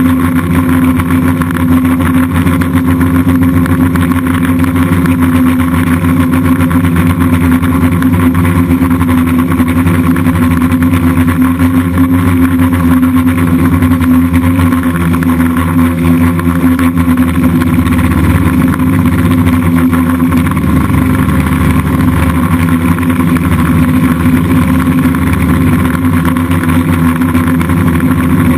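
DJI F550 hexacopter's six electric motors and propellers running in flight, a loud, steady multi-tone hum whose pitch shifts slightly a little past the middle as the throttle changes.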